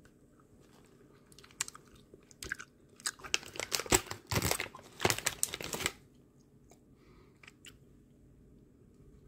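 Plastic Haribo Happy Grapes gummy bag crinkling as a hand rummages inside it for a gummy. The crackling is loudest and densest in the middle, then dies back to a few faint ticks.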